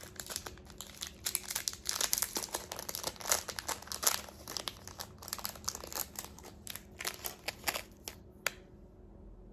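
Close crackling and clicking of hands handling waist-bead strands and waxed string, a dense run of small sharp clicks that stops about a second before the end.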